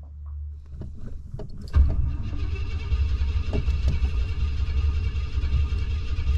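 A few light clicks, then about two seconds in a Cadillac Coupe de Ville's V8 starts cranking on the starter motor and keeps turning over without catching: a hard-starting car that won't start.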